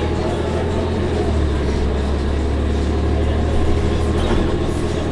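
Orion VII NG bus's Cummins ISL-G natural-gas engine running steadily, heard from on board: a constant low drone under a broad rumble.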